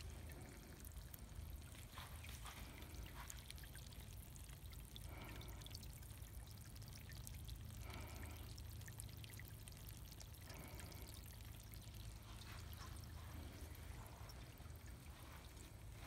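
Faint splashing and trickling of a small fountain spraying water onto pebbles in a tire basin, over a low steady rumble.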